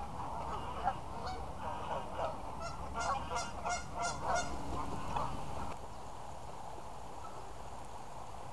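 A flock of Canada geese honking, with many short calls overlapping and coming thickest past the middle. The calls stop abruptly about two-thirds through, leaving steady low background noise.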